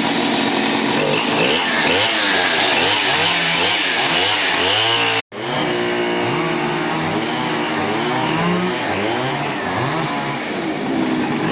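Chainsaw engine revving up and down again and again as it cuts up a fallen tree. The sound drops out abruptly for a split second about halfway through.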